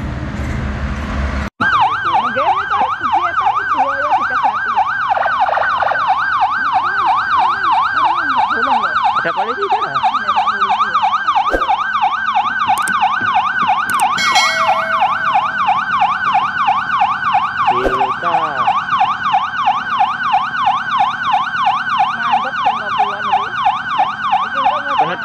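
Police pickup's electronic siren on a rapid, evenly repeating up-and-down yelp. It starts abruptly about a second and a half in, after a moment of road noise.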